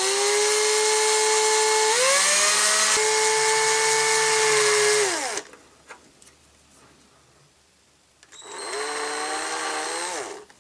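Electric drill with a 2 mm bit boring a short hole into the end of a hand-held plastic toy part. The motor whines at speed for about five seconds, rising in pitch for a moment along the way, then winds down. After a pause of about three seconds it spins up again for a second short burst and winds down near the end.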